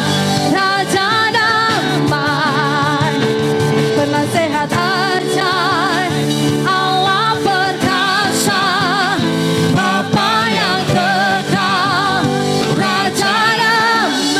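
Worship song: sung vocals with wide vibrato over sustained instrumental backing.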